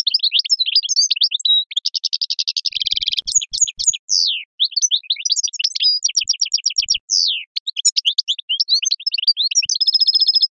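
European goldfinch singing a long, rapid song of varied twittering trills and buzzy phrases, with hardly a pause.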